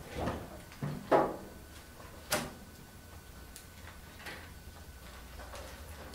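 Knocks and thumps of notes and a notepad being put down and handled on a lectern, with paper shuffling: the loudest thump a little over a second in, a sharp click about a second later, then softer handling sounds.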